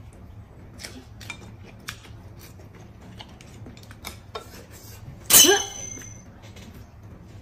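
Eating at the table: scattered clicks of chopsticks against porcelain bowls, with one loud slurp of soup noodles about five seconds in, its pitch sliding downward.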